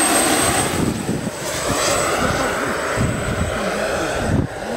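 Pahl Taurus two-stage turbine of a large-scale RC Mi-24 helicopter in flight, a steady high-pitched whine over a broad rushing noise.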